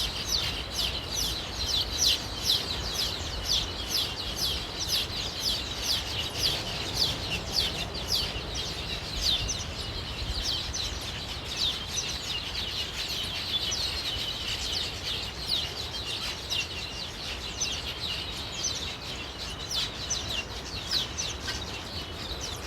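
A colony of weaver birds chattering at their nests: a dense, unbroken stream of short high chirps, several a second.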